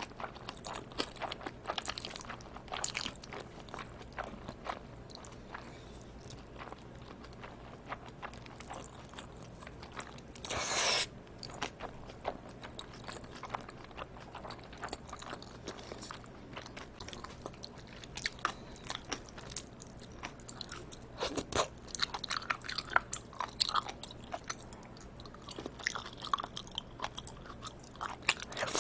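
Close-miked eating sounds of live octopus and cold bibim noodles: continual wet chewing and biting with quick smacks and clicks, and one louder noise lasting under a second partway through.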